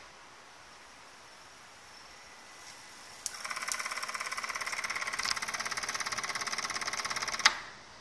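Ringer and decoherer of a restored Braun-system coherer radio receiver chattering in a fast, even rattle for about four seconds, set off by a signal the coherer has picked up. It starts with a sharp click about three seconds in and stops abruptly with another click.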